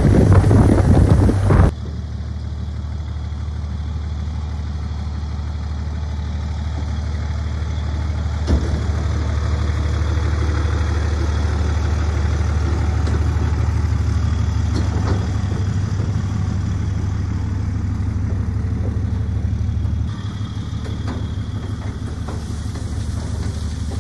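Pickup truck engine idling, a steady low hum. The first couple of seconds are louder wind and road noise from driving, which cuts off suddenly.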